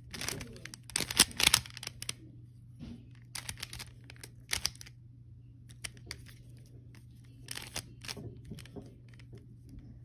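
Rubik's cube being twisted by hand: quick clusters of plastic clicks and rasps as the layers turn. The turning is densest in the first two seconds, then comes in shorter flurries with pauses between them.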